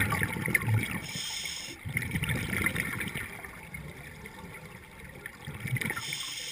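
Scuba regulator exhaust bubbles recorded underwater, coming in three bubbling bouts a few seconds apart with the diver's breaths, with a thin high hiss after the first bout.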